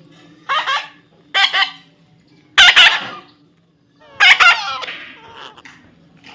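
A parrot squawking: four harsh, raspy calls a second or so apart, the third and fourth the loudest and the last one longer and trailing off.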